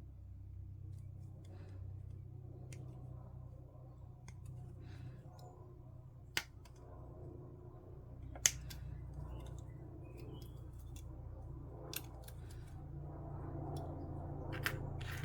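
Plastic model parts being snipped off a plastic sprue with sprue cutters: about five sharp snips a couple of seconds apart, between fainter clicks of the parts being handled. A steady low hum runs underneath.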